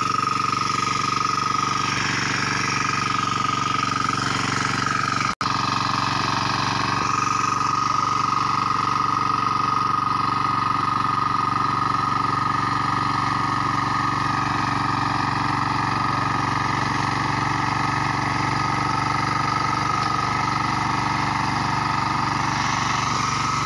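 Hand tractor (kuliglig) engine running steadily under load as its cage wheels churn through rice-paddy mud, with a constant drone and a strong steady whine. The sound drops out for an instant about five seconds in.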